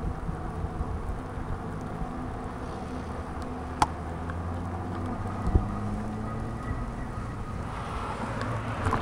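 Electric fatbike riding on a wet road: a steady motor hum under tyre and wind noise, with a sharp click nearly four seconds in and a low thump a couple of seconds later.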